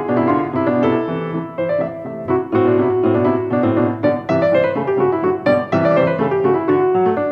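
Solo piano playing a classical piece, a quick succession of notes and chords with a stepwise falling run of notes near the end.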